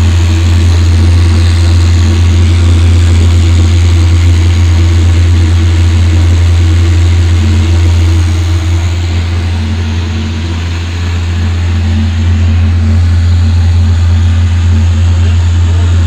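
Baltur forced-draught burner on a steam boiler running, a loud, steady low drone from its fan and firing, dipping slightly about halfway through.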